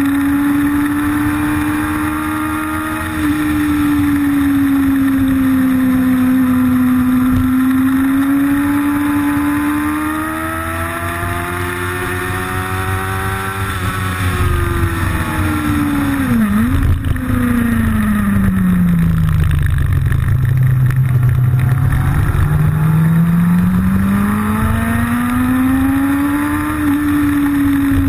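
Motorcycle engine heard from on board while riding, its note rising and falling with the throttle through the bends. About sixteen seconds in the pitch drops sharply and recovers, then it falls slowly to a low note around twenty seconds before climbing steadily back up, over a steady rush of noise.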